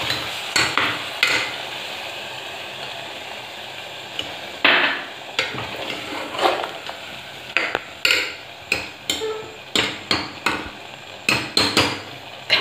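A steel ladle clinking, knocking and scraping against the aluminium pressure cooker as fried taro root pieces are stirred with a little water, over a soft sizzle. The knocks come irregularly and more often in the second half.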